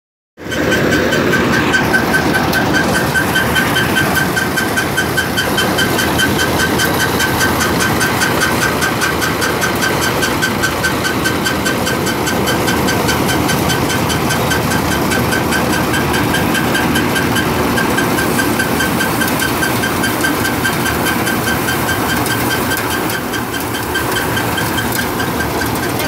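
Massey 9000 tractor-mounted mini combine harvester running under load: a diesel engine and harvesting machinery working steadily, with a fast, even, high-pitched clatter throughout.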